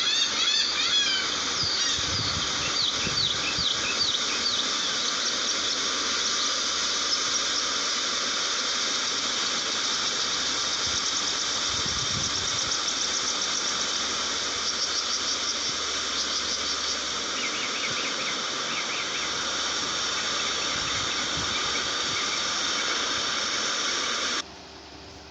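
A large flock of gulls calling at once, a dense chorus of overlapping squealing cries. It cuts off suddenly near the end, leaving a faint hiss.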